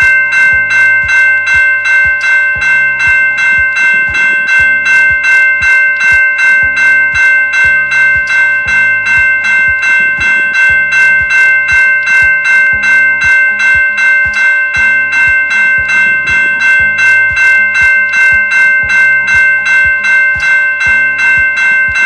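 Railway level-crossing warning bell ringing steadily, about two and a half strikes a second, signalling that the crossing is closed for a passing train.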